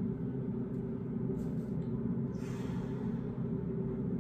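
Steady low mechanical hum, with a brief soft rustle a little past halfway through.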